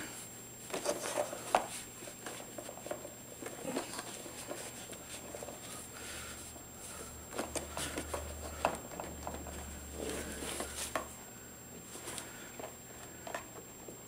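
Scattered light clicks, taps and rustles of hands handling an opened plastic coffee maker while pushing a loose rubber water hose back onto its fitting, the hose whose slipping off caused the leak.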